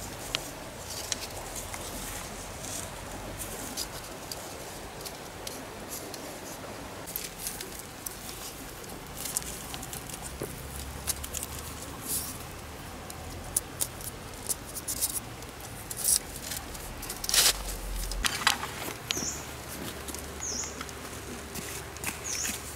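Green bamboo being handled and stripped: scattered clicks, creaks and snaps, with one loud crack about three-quarters of the way through, over a steady wash of stream water. A few short high chirps near the end.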